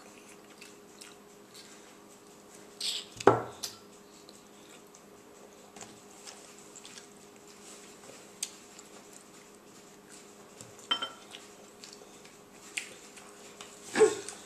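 A few brief knocks and clinks, the loudest about three seconds in, another near eleven seconds and one near the end, over a faint steady hum.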